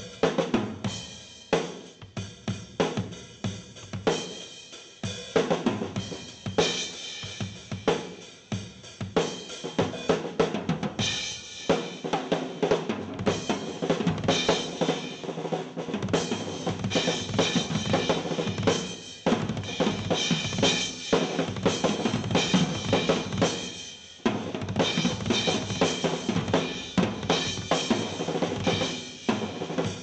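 Drum solo on a Gretsch drum kit with Sabian cymbals: fast snare and bass drum strokes mixed with cymbal crashes. The playing thickens into a dense, almost unbroken wash of drums and cymbals through the middle, with a brief lull near the end before it picks up again.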